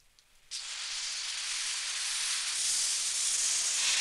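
Water hose with a brass nozzle spraying at high pressure: a steady hiss that starts suddenly about half a second in and grows a little louder. It is the rain test that checks the helicopter cabin stays watertight.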